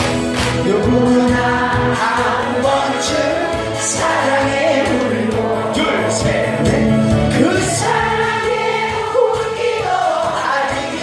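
A singer singing a Korean song into a microphone over a loud backing track, amplified through a PA system.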